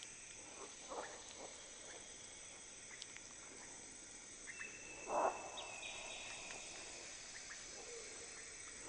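Jungle ambience: a steady, high-pitched chorus of insects such as crickets, with scattered faint clicks and one brief louder sound about five seconds in.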